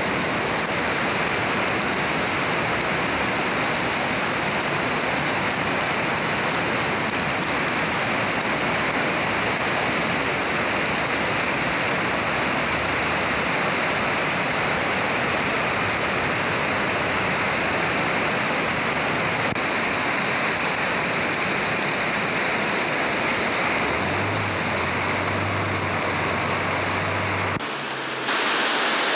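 Kennebec River in flood, rushing water making a loud, steady hiss. The sound dips briefly for a moment near the end.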